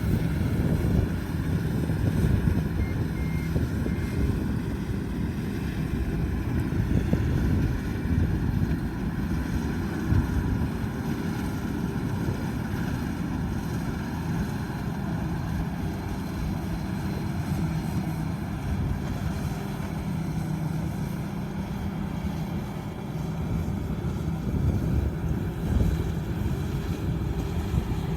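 Combine harvester running steadily in a rice field, a continuous low engine drone.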